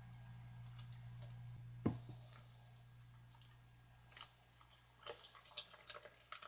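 A single sharp knock about two seconds in, then a run of small crisp crunchy clicks from a bowl of cereal in milk being handled or eaten, over a steady low hum.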